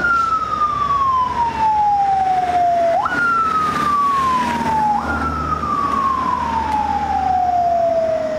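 Ambulance siren wailing as the ambulance drives off: a single tone that leaps up sharply and then slides slowly down, three times over.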